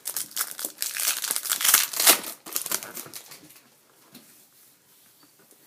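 Plastic card-pack wrapper crinkling as it is torn open and pulled apart, a dense crackle that is loudest about two seconds in and fades to light handling noise after about three seconds.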